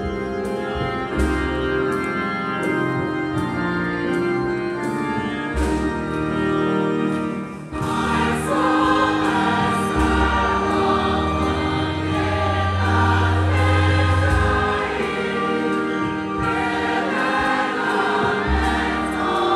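Church choir singing a hymn in parts with keyboard accompaniment and sustained bass notes, growing fuller and louder about eight seconds in.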